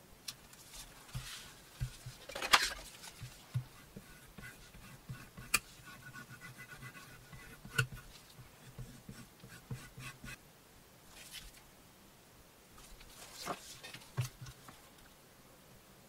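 Gloved hands handling and rubbing leather pieces on a glass work slab: scattered light taps and short rustles, the loudest about two and a half seconds in, with a few seconds of faint fast ticking in the middle.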